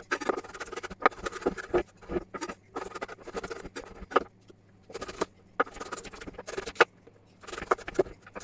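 Kitchen knife cutting vegetables on a cutting board: irregular sharp taps, a few at a time with short gaps between.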